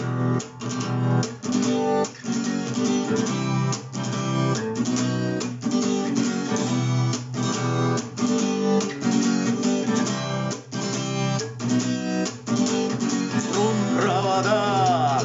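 Acoustic guitar strumming a chord progression in E minor at a steady pulse. A singing voice comes in near the end.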